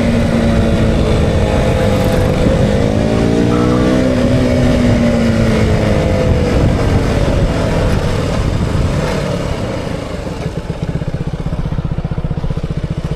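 KTM Duke 200's single-cylinder four-stroke engine running under way, revs rising about three seconds in and easing off again, with rushing wind noise. Near the end it drops to a low, evenly pulsing idle.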